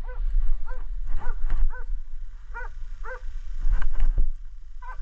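Istrian wire-haired hound baying in a rapid run of short barks, about two a second with brief pauses, the sign of a hound giving voice on a wild boar it has found. A few sharp knocks sound among the barks near the middle and end.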